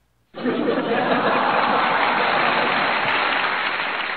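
A canned applause and crowd sound effect that starts abruptly about a third of a second in and holds at a steady level.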